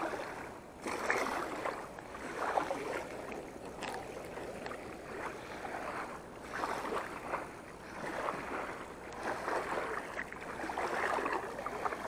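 Small river waves lapping at the water's edge in soft, irregular washes every second or so.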